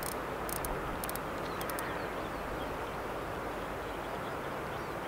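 Steady rush of wind noise, with a run of light, high-pitched ticking clicks in the first two seconds from a fishing reel being handled on the rod rest.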